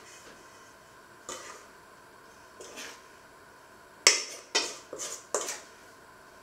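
Kitchen dishes and utensils clattering: two light knocks, then four louder sharp clanks in quick succession about four seconds in, each with a short ring.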